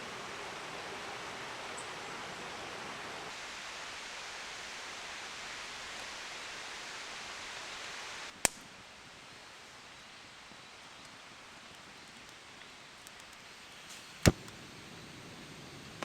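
Steady, even hiss of outdoor background noise that drops to a lower level about eight seconds in. Two sharp clicks cut through it, the second one, near the end, the loudest.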